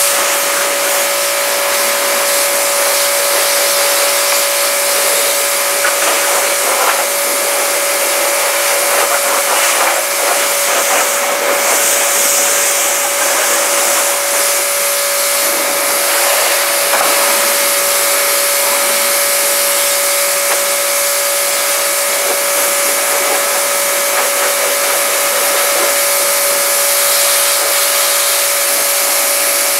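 Pressure washer running steadily, its spray gun jetting water over an engine bay to rinse off the degreaser: a constant motor hum under the hiss of the spray.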